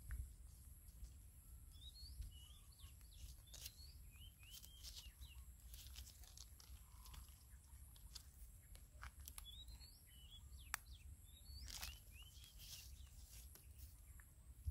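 Faint bird chirps in short groups of quick, curling notes, coming a few times, over a low outdoor rumble with scattered light clicks.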